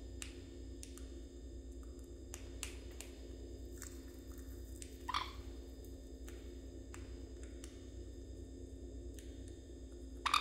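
Sun conure eating: scattered small sharp clicks of its beak working on food. A short, louder sound comes about five seconds in and another near the end.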